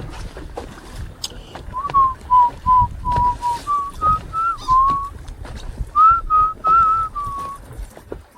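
A person whistling a tune: a run of short notes stepping up and down, with a brief pause partway through, over a low rumble of wind and boat noise.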